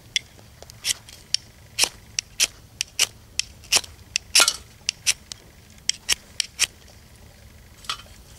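A homemade firesteel (ferrocerium rod) struck again and again to throw sparks onto magnesium shavings, trying to light Esbit fuel tablets. There are about twenty short, sharp scrapes, two or three a second, then a pause and one last scrape near the end.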